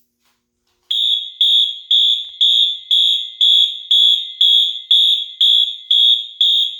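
Fire alarm horns on a conventional Firelite MS10UD system going into alarm after a manual pull station is pulled: a loud high-pitched beep, evenly repeated about twice a second, starting about a second in.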